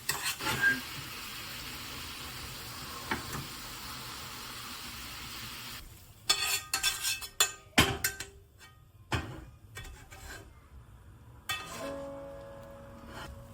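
Food sizzling steadily in a frying pan, cut off about six seconds in. Then come a series of sharp clinks and knocks from utensils against the pan or dishes, and soft background music begins near the end.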